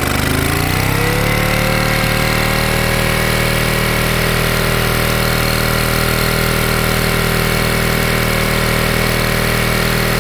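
1924 Johnson Model A 2-horsepower outboard, a two-cylinder opposed-twin two-stroke, running under load. It picks up speed over the first second or so, then runs at a steady pitch.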